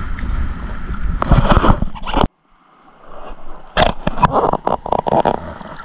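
Wind rumbling on the microphone and water moving around a person wading in a lagoon. The sound cuts off abruptly a little over two seconds in, then comes back quieter with a few sharp splashes and knocks from the hand in the water.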